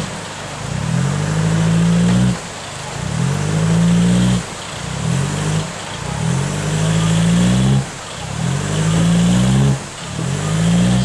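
Pickup truck's engine revved hard again and again, about six surges that climb in pitch and cut off suddenly, as the 4x4 struggles to climb out of a river onto the bank.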